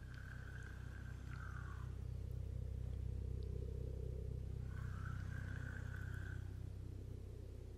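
A steady low motor hum, with a higher tone that comes in twice for a second or two and dips in pitch as it ends.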